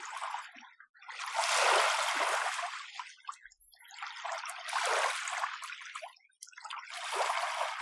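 Small, gentle sea waves washing in and draining back over the shore, three soft hissing surges that swell and fade with short lulls between.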